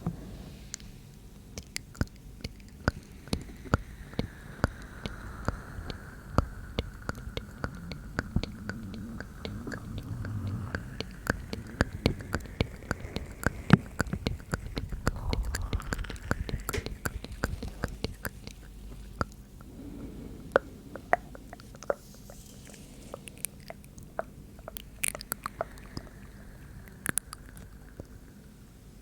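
ASMR mouth sounds very close to the microphone: a dense, irregular run of wet clicks and smacks with soft breathy sounds underneath.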